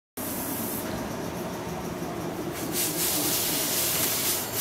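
JR West 115 series electric trains at a station platform: a steady mechanical hum and the noise of a slowly moving train. About two and a half seconds in, a loud hiss of air comes in and carries on.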